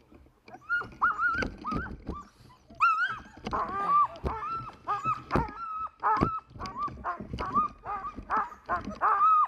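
Sled dogs whining and yelping in short, high, repeated cries, starting about a second in and coming thick and fast, sometimes several at once.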